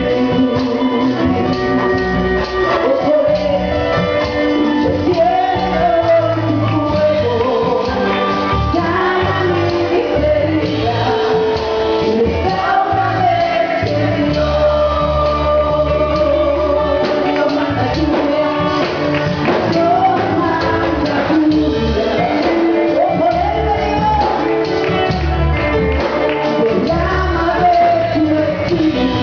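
Live church music: a congregation singing a Spanish-language gospel hymn with tambourine and band accompaniment.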